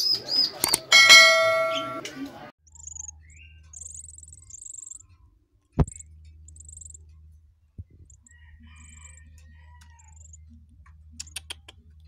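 Caged songbirds calling loudly for the first couple of seconds, ending in a ringing whistled phrase. Then faint, thin, very high cheeping from ten-day-old Asian pied starling (jalak suren) nestlings begging with gaping bills, over a low steady hum, with a sharp tap near the middle.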